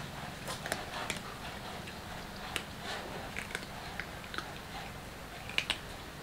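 Several cats crunching dry kibble: irregular sharp crunches and clicks, a few louder ones about two and a half seconds in and again near the end.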